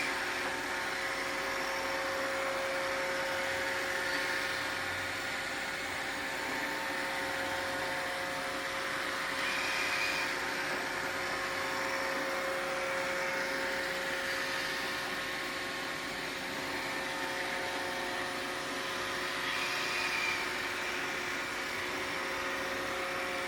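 Roomba robot vacuum running: a steady whirring hum with a constant whine and a hiss, and a brief higher-pitched whine about every ten seconds.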